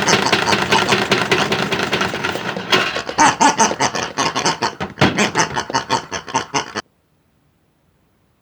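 Toy washing machine running with hard objects tumbling in its drum: a fast, loud clattering rattle that stops abruptly about seven seconds in.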